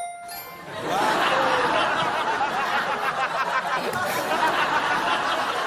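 A short electronic tone, then from about a second in a studio audience laughing and chattering.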